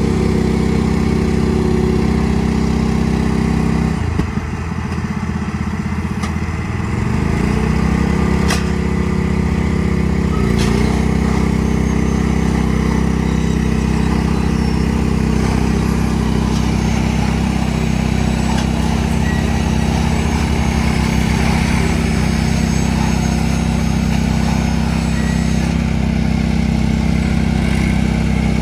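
Tractor engine running steadily. About four seconds in the revs sag and then climb back over a few seconds, with a smaller dip near ten seconds and a single sharp click in between.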